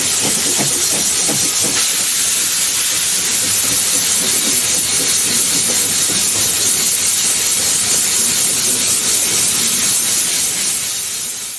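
Steam hissing loudly and steadily from the 1892 tank locomotive NSB type 7a no 11 "Ulka", with a few low knocks in the first couple of seconds. The hiss fades away near the end.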